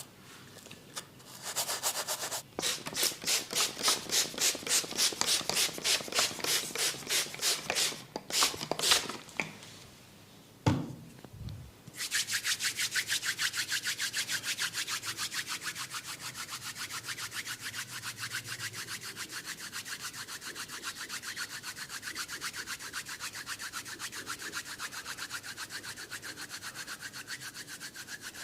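Brisk, rhythmic rubbing strokes of a head massage on hair and skin, about three strokes a second at first. After a short pause and a brief low thud, the rubbing resumes faster and very even, slowly growing fainter.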